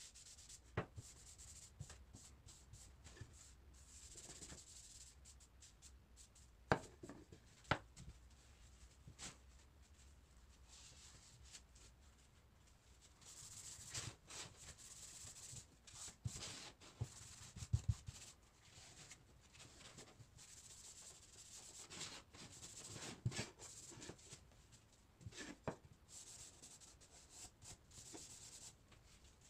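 Faint rubbing of a cloth working wax into a wooden board, scratchy and coming and going in stretches, with a few sharp knocks scattered through.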